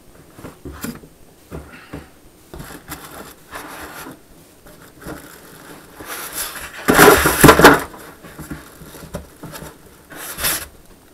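Cardboard and polystyrene foam packaging scraping and rubbing as a foam-packed plasma cutter is handled in its cardboard shipping carton, with a loud burst of scraping about seven seconds in and a shorter one near the end.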